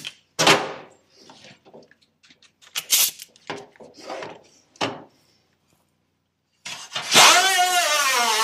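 Gloved hands handling a MIG welding lead and hoses on a sheet-metal floor pan: a handful of separate rustles, scrapes and knocks. Near the end, loud guitar music starts and takes over.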